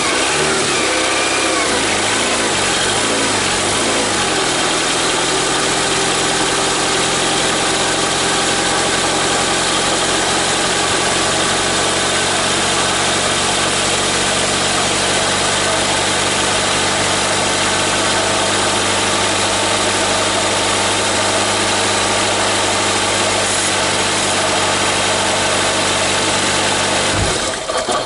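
Honda F22B1 2.2-litre four-cylinder VTEC engine running on its first start after a head gasket replacement. Its speed wavers up and down for the first few seconds, then settles into a steady idle, and the engine is shut off near the end.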